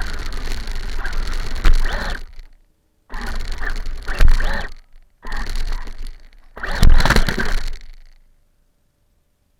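RC car running on rough ground, picked up close by a camera on the car: loud rattling drive noise in three stretches a few seconds long, each cutting off suddenly, with a sharp knock in each. It stops near the end.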